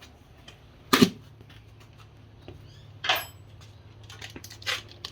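Handling noises: a sharp knock about a second in, a scraping clatter around three seconds, and lighter clicks, over a low steady hum.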